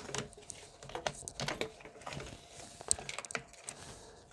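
Metal fuel rail and its injectors being handled and lifted out of the engine, giving scattered light clicks, knocks and rustling of metal and plastic parts, with the sharpest click about three seconds in.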